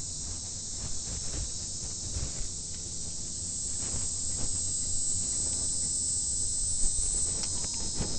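Faint clicks and knocks of hands working the plastic electrical plugs off a Yamaha four-stroke outboard's fuel injectors, over a steady high hiss.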